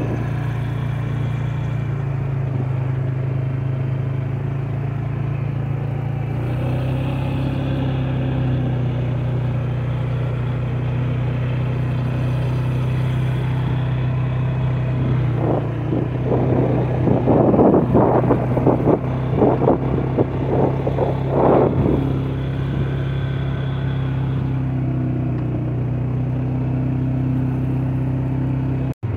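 ATV engine running at a steady, constant pitch while being ridden along a dirt trail. About halfway through, several seconds of louder, uneven noise ride over the engine.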